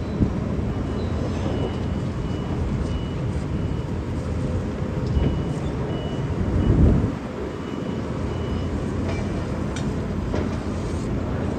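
Diesel engine of a truck-mounted mobile crane running under load as it lifts a lattice crane boom section, swelling briefly about seven seconds in. Short high warning beeps sound now and then over it.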